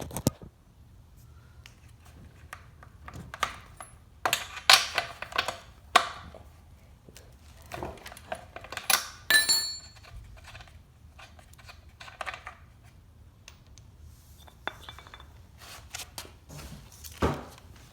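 Metal hand tools clinking and knocking against the trimmer's small engine while its spark plug is being taken out, in scattered clicks with one short metallic ring about halfway through.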